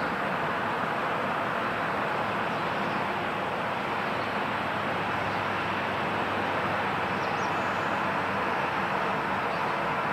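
Jet airliner engines running with a steady rushing noise that holds level throughout.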